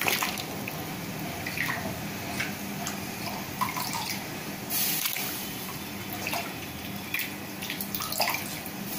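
Thin raw potato slices dropped by hand into a pot of hot water, making small irregular splashes and plops over a steady low hiss.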